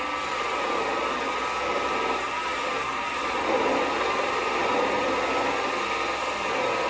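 Vevor MX-S716G variable-speed mini lathe running at about 1,250–1,300 rpm while taking a turning cut on a 2024 aluminum bar, throwing chips. The motor and gears give a steady, busy whine with a slightly wavering pitch.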